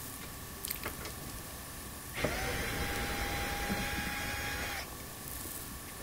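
Cordless drill with a right-angle attachment running at a steady speed for about two and a half seconds, backing out a quarter-inch hex screw. A couple of light clicks come about a second before it.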